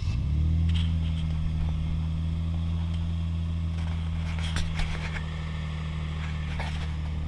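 Toyota 1G-FE straight-six engine catching and settling into a steady idle, with no knock audible.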